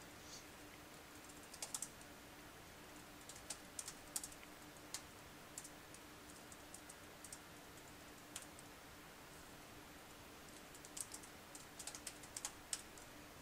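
Typing on a Toshiba NB205 netbook's keyboard: faint, scattered key clicks in short clusters with pauses between them, over a faint steady hum.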